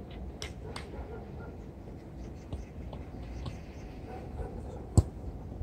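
Futsal play: scattered light taps and footfalls on the court over a low rumble, and one loud, sharp strike of the ball about five seconds in.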